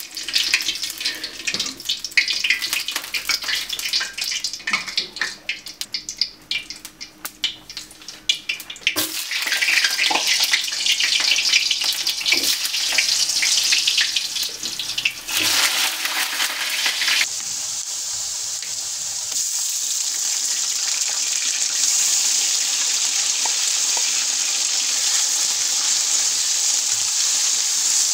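Hot oil crackling in a karahi over a gas flame, becoming a dense sizzle when food goes in about nine seconds in. From about seventeen seconds there is a steady, even frying hiss as vegetables are fried and stirred.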